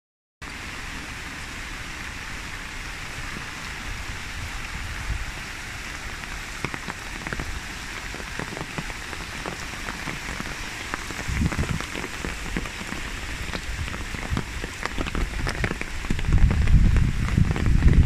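Steady rain falling, with many separate drops hitting close by. A low rumble comes in near the end and the sound grows louder.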